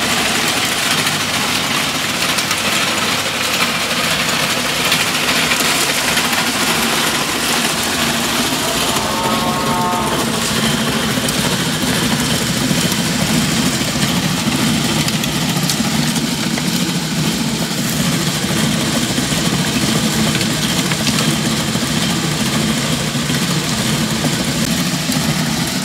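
Motor-driven rotary drum sieve (trommel) running steadily, its turning drum tumbling vermicompost as it sifts it, with a steady mechanical hum and the rush of compost in the drum.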